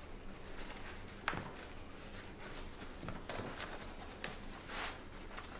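Quiet room tone with a few soft, scattered clicks and rustles of hands and objects being handled.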